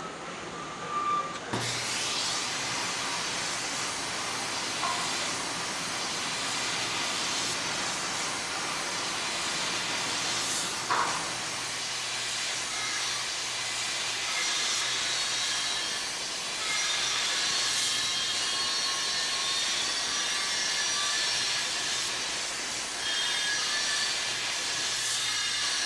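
Welding arc hissing and crackling steadily over a low electrical hum, starting abruptly about one and a half seconds in, with a few sharp clicks.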